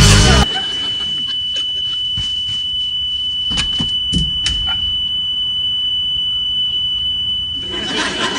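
Smoke alarm sounding a continuous high-pitched tone, with a few short knocks in the middle.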